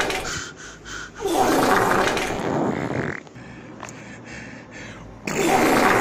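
Comic fart sound effects. A raspy blast trails off just after the start, a few short sputters follow, a longer wavering blast comes about a second in, then there is a quieter crackly stretch before another loud blast near the end.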